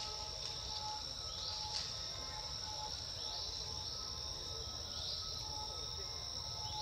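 Steady high-pitched insect chorus, like crickets or cicadas, with short rising chirps about every second and a half and a low rumble underneath.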